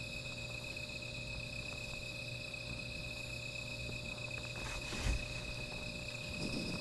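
Night insects trilling in a steady, unbroken high chorus. A short thump sounds about five seconds in, and another just before the end.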